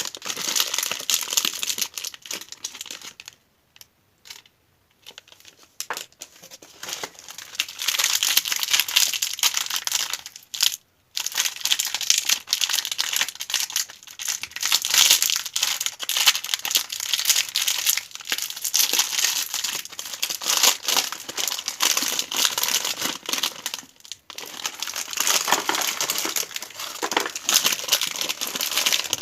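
Candy wrappers crinkling and crackling as they are handled and torn open by hand, in dense runs with a pause of a couple of seconds about four seconds in and short breaks later.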